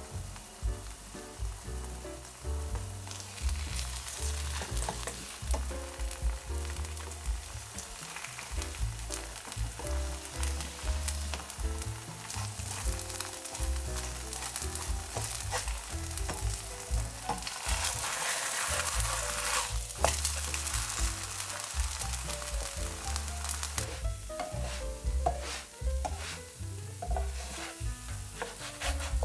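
Potato batter pancake frying in oil in a nonstick pan: a steady sizzle that builds a few seconds in and is loudest about two-thirds of the way through. Near the end a spatula scrapes and taps against the pan as the pancake is loosened and lifted to turn.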